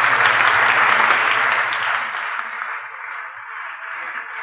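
Audience applauding, a dense patter of many hands, fading and thinning out over the last couple of seconds. Under it a held musical chord fades out about two seconds in.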